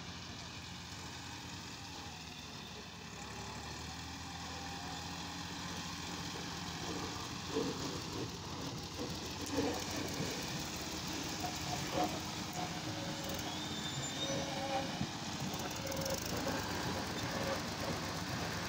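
Diesel tractor engine running steadily, growing louder a few seconds in, with a few sharp knocks in the middle.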